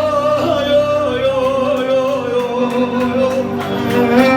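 Live Turkish folk music: a male voice holds one long, wavering sung note over steady instrumental backing.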